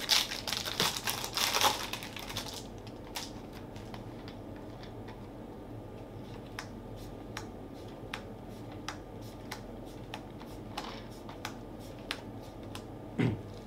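Foil booster pack of Magic: The Gathering cards torn open with a loud crinkling rip for the first two seconds or so. Then the cards are laid out one by one, with a light click about twice a second.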